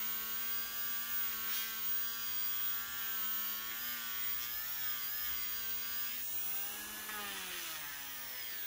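Worx WX739 MakerX brushless rotary tool running at low speed, a felt polishing wheel buffing black tarnish off a metal ring. A steady whine that dips in pitch about six seconds in and comes back up.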